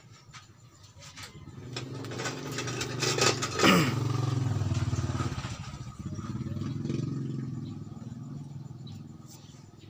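Engine of a passing motor vehicle: it swells about a second and a half in, is loudest near four seconds with its pitch falling, then fades away.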